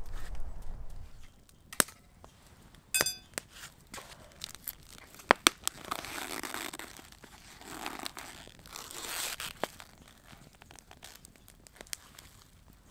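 Paper wrapping crinkling and rustling as it is unfolded and handled, in several short rustling spells, with a few sharp clicks and snaps in the first half.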